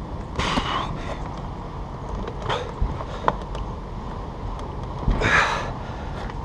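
A man's forceful breaths of effort, twice, as he strains on bolt cutters against a padlock, with a couple of sharp metal clicks in between. A low rumble runs underneath.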